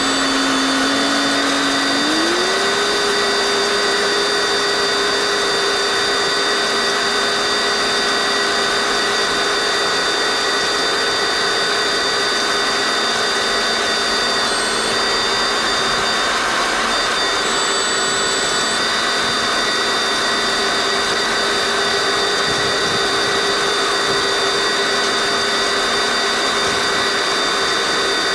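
Tractor engine running steadily under a continuous mechanical whine. Its pitch rises about two seconds in as it is throttled up, then holds.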